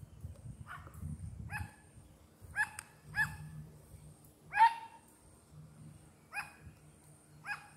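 A dog barking: about seven short, separate barks at uneven intervals, the loudest about four and a half seconds in.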